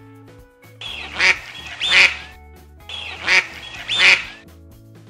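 Duck quacking: two loud quacks, then the same pair again, over background music.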